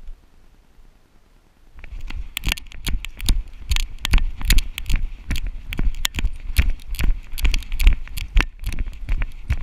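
Giant schnauzer breaking into a run about two seconds in, heard from a GoPro strapped to its back: rapid, uneven thumps of its footfalls and the camera jolting in the harness, with rustling of leaf litter.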